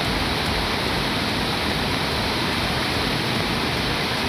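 Flash-flood water in a swollen forest stream rushing over rocks: a steady, loud rush of water.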